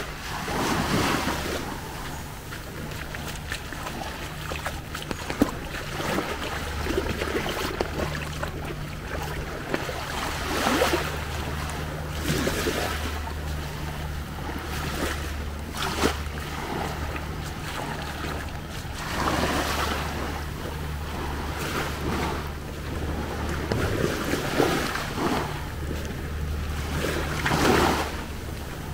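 Sea waves washing onto a sandy beach, swelling every few seconds, with wind buffeting the microphone and a steady low hum underneath.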